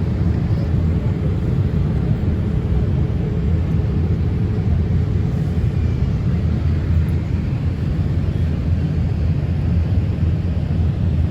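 Steady rumble of an airliner heard from inside the cabin: engine and airflow noise, deep and even, with a faint constant hum.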